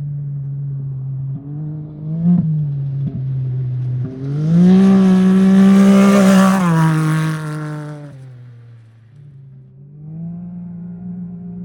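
Off-road race vehicle engine running hard as it approaches, passing close and loudest about five seconds in, then dropping in pitch and fading as it goes by. Engine sound rises again near the end.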